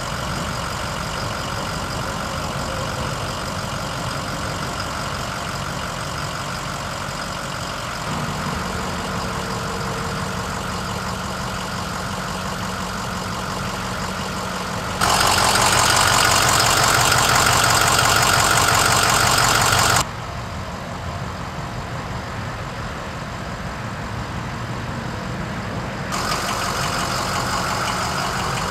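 Ford F-550 service truck's engine idling steadily. Its level jumps at several edits, with a louder, brighter stretch of about five seconds in the middle.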